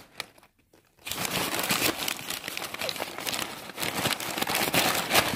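Plastic bag crinkling and rustling as it is handled right at the microphone, starting about a second in.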